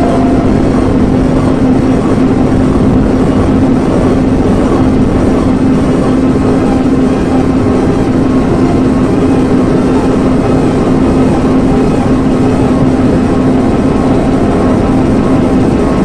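Loud electronic noise music: a dense, rumbling wash of noise under one steady held low tone, with no breaks.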